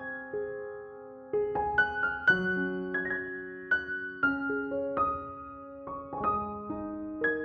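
Background music: a soft solo piano melody of single struck notes that ring and fade.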